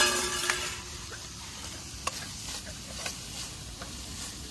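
Food sizzling in a wok as it is stir-fried, with a spatula clicking and scraping against the pan now and then. The sizzle is loudest right at the start, just after ingredients are poured in, then settles to a steady, gentle sizzle over a flame the cook calls too small.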